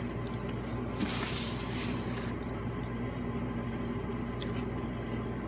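Steady low background hum, with a brief rustling noise lasting just over a second starting about a second in.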